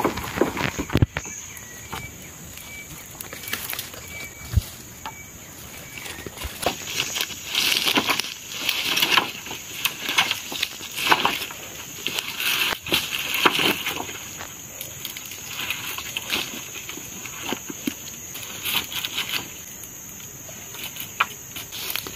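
Cut bamboo poles knocking and clacking against each other as they are handled and tied into a bundle, with rustling and crunching from dry leaf litter. The knocks are sharp and irregular, and the rustling is busiest in the middle.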